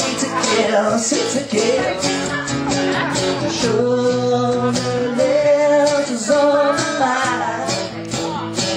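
A man singing live over his own strummed acoustic guitar, holding long notes through the middle.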